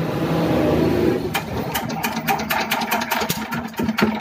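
Kirloskar Varsha single-cylinder air-cooled diesel engine being hand-cranked: a whirr as it spins up, then about a second in a quick run of knocks, roughly five a second, as it turns over on compression without settling into running. The engine has starting trouble, which the mechanic traces to a worn bore and piston.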